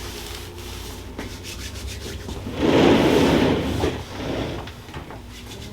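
A rubbing, scraping friction noise lasting about a second and a half, starting about two and a half seconds in, with a shorter, weaker rub after it.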